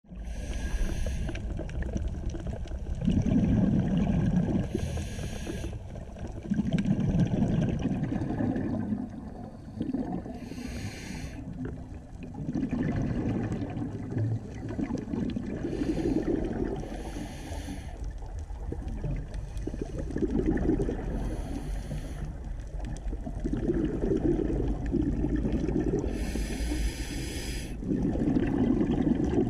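A scuba diver breathing through a regulator underwater: slow breaths with a burst of exhaust bubbles about every five seconds, six or so in all.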